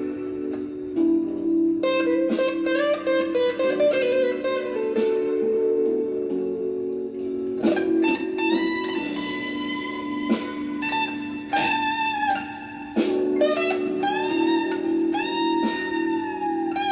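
Gibson Les Paul Traditional electric guitar playing a blues solo: picked single notes and string bends that glide up and hold, over a steady lower layer of sustained notes.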